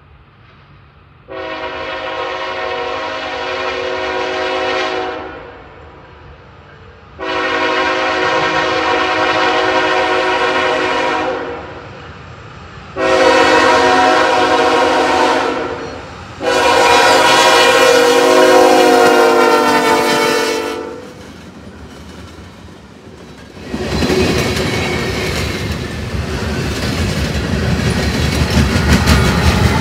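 Norfolk Southern diesel locomotive's multi-chime air horn sounding four blasts: long, long, a shorter third, then long, the grade-crossing signal. About two-thirds through, the train arrives and runs past loudly, with heavy rumble and wheels clicking over the rail joints.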